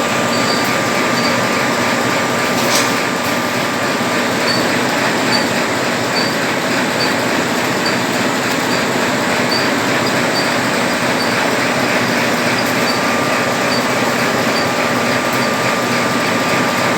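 Automatic paper napkin packaging machine running steadily: a dense mechanical clatter with a thin steady whine and light regular ticking, plus a sharp click about three seconds in.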